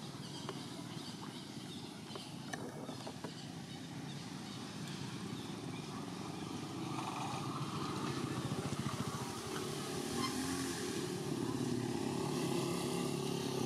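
A vehicle engine running steadily, growing louder through the second half, with a few light clicks.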